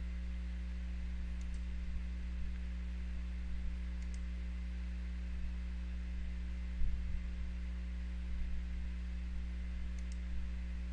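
A few faint computer mouse clicks over a steady low electrical hum, with a soft low bump about two-thirds of the way through.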